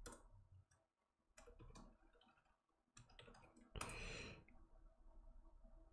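Faint, scattered keystroke clicks from a computer keyboard as a terminal command is typed and entered, with a brief soft rush of noise about four seconds in.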